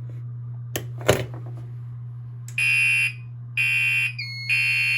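A drill switch is clicked twice on a fire alarm panel. Then a Gentex Commander 3 horn, its horn taped over, sounds in three short blasts about a second apart, the temporal evacuation pattern. A second, steady tone joins in before the third blast.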